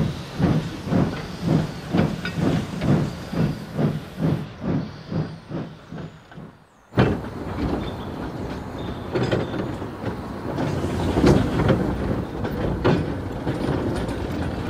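Steam locomotive chuffing at about two beats a second, the beats growing fainter until they die away about six seconds in. After a sudden cut comes a steady rumble of a train rolling on track, with scattered clicks.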